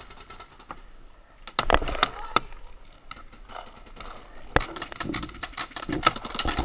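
Paintball markers firing: sharp pops in quick bursts, a cluster about a second and a half in, a single one about halfway through, and another run near the end.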